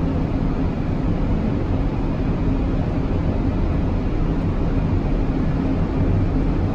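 Steady flight-deck noise of an Airbus A380 on final approach, heard inside the cockpit: a constant rush of air with a low, even hum underneath.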